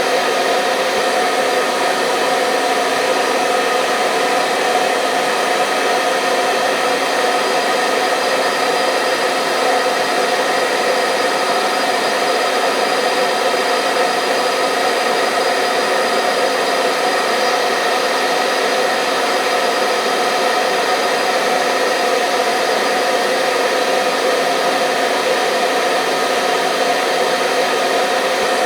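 Electric hair dryer running continuously at a steady speed: an even blowing hum with a fixed motor whine, used as white noise to lull a newborn baby to sleep.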